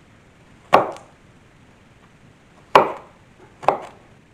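Kitchen knife chopping a red onion on a wooden cutting board: a few sharp, separate chops with pauses between them, the last two close together.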